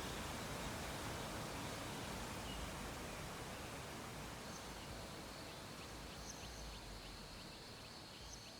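A steady hiss of faint background noise that slowly fades, with a thin high tone and a run of faint high ticks coming in about halfway through.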